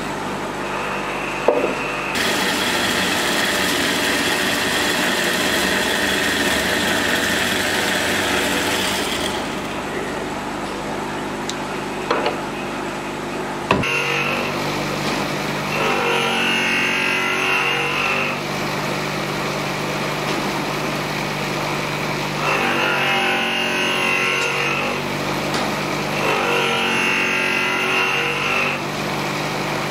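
Horizontal metal-cutting bandsaw cutting through a wooden handle block clamped in its vise, with a steady whine over the noise of the cut, which stops after about nine seconds. A few clicks follow, then a steady low hum with three short scratchy episodes.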